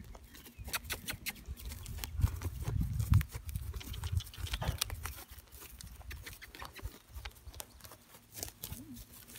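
A horse moving over grass with a bareback rider, giving scattered hoof knocks and thuds. A louder low rumble comes about two to three seconds in.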